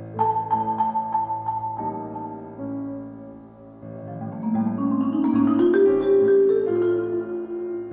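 Marimba played with mallets over piano accompaniment: struck notes ring out just after the start, and from about four seconds in the marimba climbs in a rising run of notes that grows louder.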